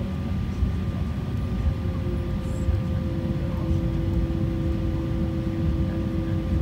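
Steady cabin noise inside an Embraer 190 taxiing: its General Electric CF34-10E turbofan engines running at low taxi power over a low rumble. A new steady tone comes in about three seconds in.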